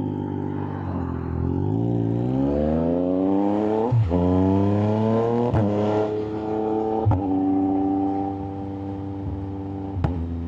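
Yamaha MT-09's inline three-cylinder engine accelerating hard through the gears, its pitch climbing and dropping sharply at each of three quick upshifts. It then holds a steady cruise, with another shift near the end.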